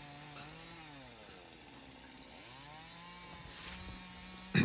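Stihl two-stroke gas chainsaw running through light trim cuts in the wood, its engine pitch rising and falling several times as the throttle is worked. A brief, louder sharp noise comes right at the end.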